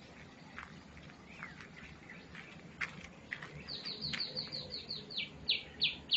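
Songbird calling: scattered short chirps, then, a little past halfway, a fast run of falling notes that slows and gets louder near the end.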